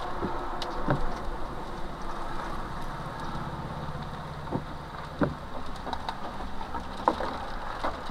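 Severe thunderstorm wind making a steady rush, with a low hum underneath and scattered sharp hits of wind-blown rain and small debris.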